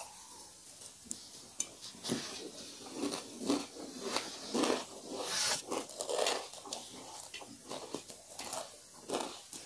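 A person eating close to the microphone: irregular crunching bites and chewing of fried chicken and dry beaten rice (chiura), with a few light clicks of food and fingers against the plate.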